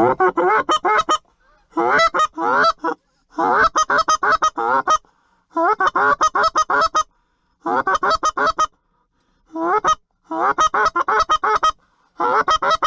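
Hand-held goose call blown in quick runs of honks and clucks, each note bending up and down in pitch. There are about eight runs of several notes each, with short pauses between them.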